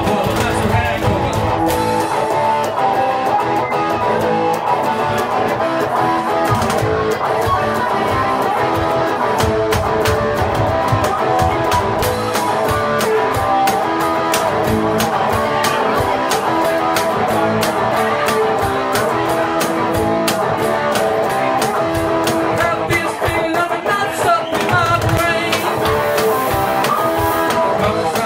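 Live rock band playing: electric guitar over drums keeping a steady beat.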